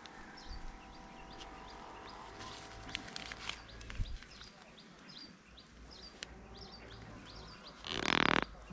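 Small birds chirping over and over in short high notes, with a loud, brief animal call near the end.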